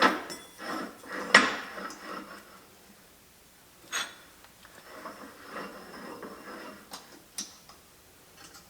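Steel vise base being worked by hand: a few sharp metal clicks and clanks a couple of seconds apart, with faint scraping and rubbing between them as the freshly oiled parts are moved and clamped.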